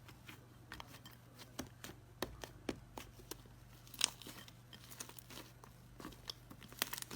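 Slime being squeezed and worked by hand, giving off scattered sharp clicks and crackles, the loudest about four seconds in, over a steady low hum.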